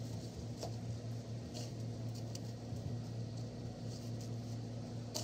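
Steady low hum with a few faint, short scrapes and clicks over it.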